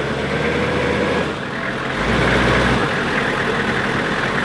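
Military truck's engine idling steadily, a low rumble that grows a little louder about two seconds in.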